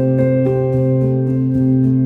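Background music: a slow, gentle instrumental whose sustained notes change about every half second.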